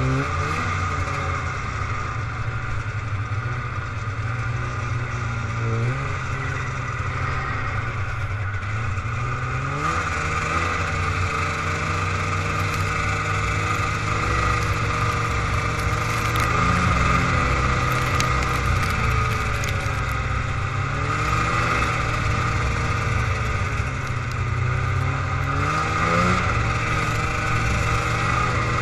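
Old Polaris 450cc snowmobile's two-stroke engine running under way, its pitch rising and falling again and again as the throttle is opened and eased, over a steady hiss.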